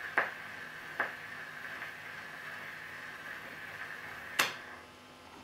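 Steel needle of a magnetic pickup running in the groove of a shellac record after the music has ended: steady surface hiss with sharp clicks, one about a fifth of a second in, one at about a second, and a louder one near the end.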